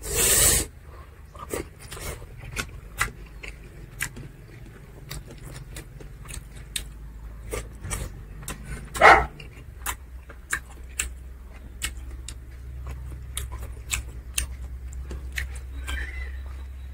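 Close-up eating sounds: chewing and lip smacking, with many short wet clicks, as a man eats curry by hand. A loud rushing noise comes at the very start and a brief louder sound about nine seconds in.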